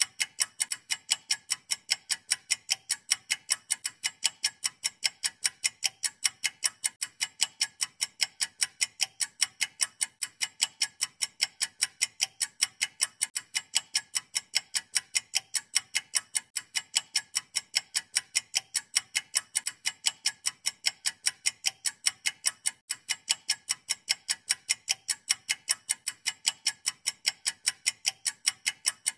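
Very regular clock-like ticking, about four to five sharp, high-pitched ticks a second, never changing pace.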